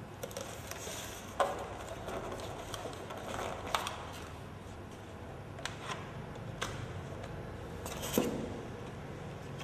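Unpacking noise: a toy M4-style rifle and its parts being handled and lifted out of their cardboard box and packaging insert, with rustling and several sharp knocks of the gun against the packaging.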